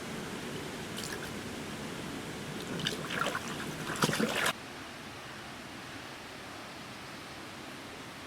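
Water splashing and dripping in irregular bursts for a couple of seconds as a small fish is let go into a creek, over the steady rush of flowing water; the splashing stops suddenly about halfway through.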